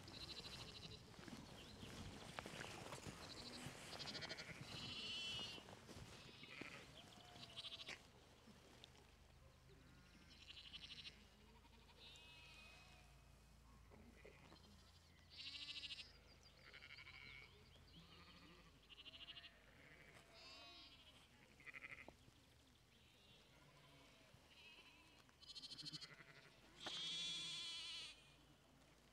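Sheep and lambs bleating, a dozen or so separate calls, the loudest and longest, about a second, near the end.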